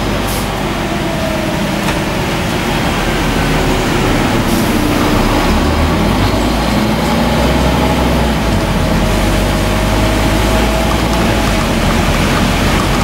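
Scania N230UD double-decker bus under way, heard from the upper deck: steady engine rumble and road noise, with a faint whine that climbs in pitch about halfway through and then holds as the bus picks up speed.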